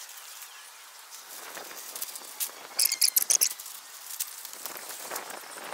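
A short, high-pitched chirping trill of rapid pulses about three seconds in, over faint rustling.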